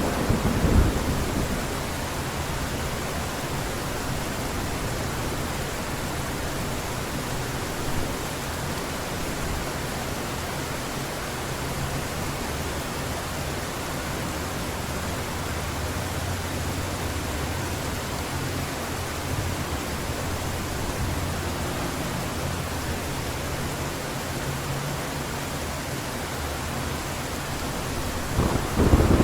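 Heavy rain pouring steadily in a thunderstorm, under a continuous low rumble of thunder. A louder thunder rumble fades out in the first second, and another builds near the end.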